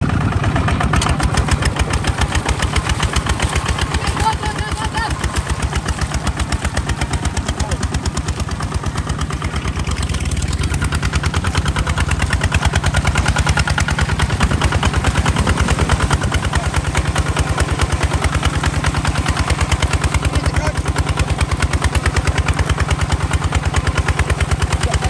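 Kubota ZT 155 DI walking tractor's single-cylinder diesel engine running with a fast, even chugging, working under load with the tractor bogged in deep mud. It grows a little louder about halfway through.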